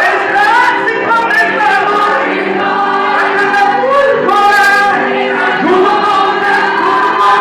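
Music: a Christian worship choir singing a slow gospel song in Portuguese, voices holding long notes and gliding between them.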